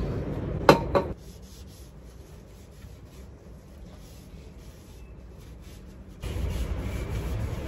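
A tissue wiping and rubbing along a gilded picture frame in soft scrubbing strokes, cleaning it before painting. A sharp tap comes a little under a second in, and a low background noise gets louder about six seconds in.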